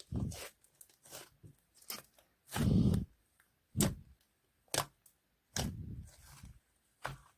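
Slime being squished and handled: a series of irregular squelches and pops, the longest and loudest about two and a half seconds in.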